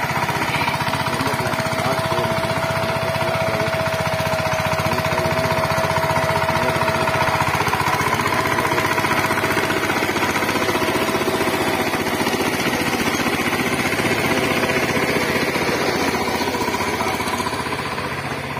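Walk-behind power tiller's single-cylinder diesel engine running steadily under load with a fast, even knocking beat while its rotary tines dig a furrow. It grows a little fainter near the end.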